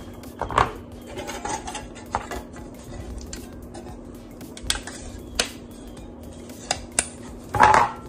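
Sharp metal clinks and taps as a tin peanut can and its cut-out metal bottom are handled and set down on cardboard: single taps spaced about a second apart, then a louder clatter near the end.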